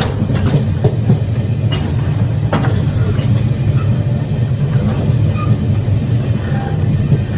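The coach-to-coach gangway of a Taiwan Railways PP Tze-Chiang (E1000 push-pull) express train running: a loud, steady low rumble with scattered sharp clicks and rattles, the clearest about two and a half seconds in.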